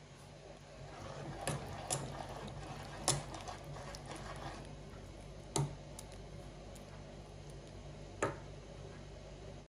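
Metal spoon stirring thick moi moi batter in a stainless steel pot: soft squelching, with about five sharp clinks as the spoon knocks against the pot.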